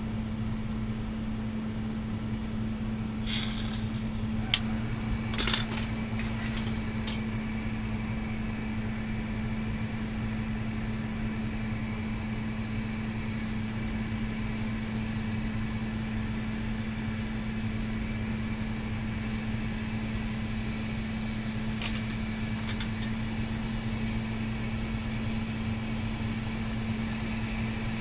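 Glassblowing bench torch burning with a steady hiss over a constant low hum. There are a few light clicks of glass or tools a few seconds in, and again about three quarters of the way through.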